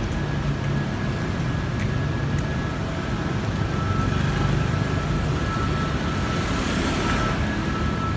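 Steady street traffic noise: a low hum of car and motorcycle engines on a city street, swelling for a few seconds in the second half as a vehicle passes.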